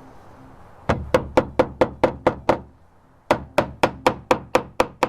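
Hammer driving nails into a roofing slate: two runs of about eight quick, even blows, roughly four a second, with a short pause between them. Each strike rings briefly.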